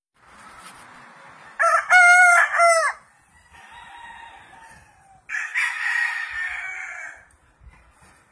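Gamecock rooster crowing once, loud and about a second and a half long, a couple of seconds in; a second, fainter and rougher crow follows a few seconds later.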